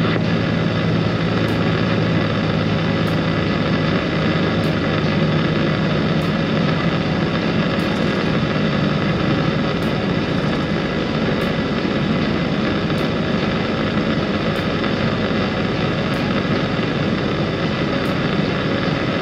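Steady engine and road drone inside a semi truck's cab at highway speed. The engine's tone is plain for the first few seconds, then sinks into the tyre and wind noise.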